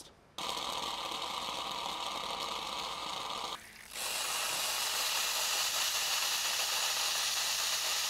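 HX E61 espresso machine's wand venting into the drip tray: a steady hiss for about three seconds, a short break, then a louder, fuller steam hiss as the boiler is emptied and depressurised.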